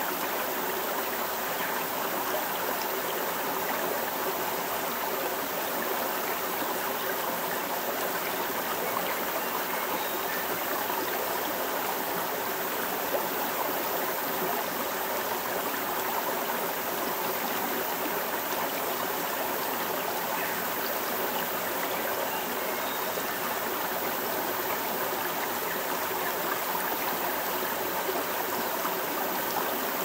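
Running water: a stream flowing with a steady, unbroken rush.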